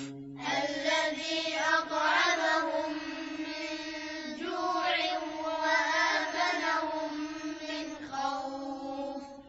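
Several high-pitched voices chanting together in a drawn-out melodic line, fading out near the end.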